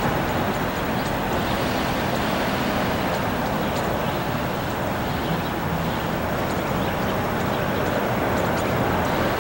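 Steady rushing noise of a Southwest Boeing 737-700's CFM56 jet engines on final approach, mixed with wind buffeting the microphone.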